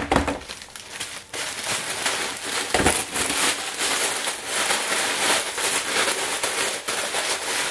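Plastic bag of ice crinkling and rustling as it is handled, dense and crackly, with a dull thump at the start and another about three seconds in.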